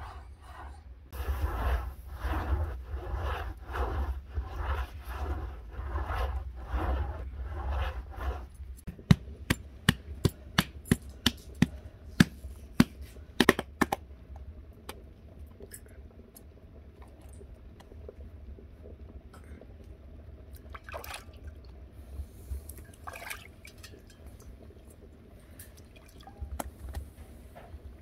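Rhythmic scrubbing strokes, about one and a half a second, as the inside wall of a clay tandoor is wiped with a cloth pad. Then a run of about a dozen sharp slaps as a sheet of bread dough is patted and stretched between the hands.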